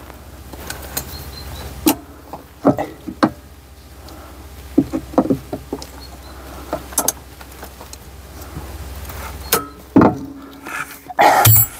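Tools clicking and knocking on metal while working at stuck screws that spin rather than loosen, over a steady low hum that stops with a knock about ten seconds in.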